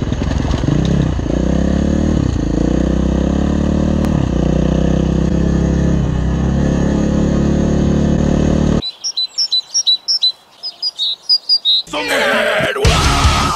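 KTM enduro motorcycle engine running steadily at low revs while ridden slowly. It cuts off abruptly about nine seconds in, leaving birds chirping, and loud rock music with guitar starts near the end.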